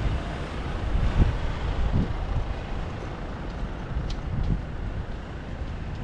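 Wind rumbling and buffeting on the microphone in irregular gusts, over a steady wash of road traffic.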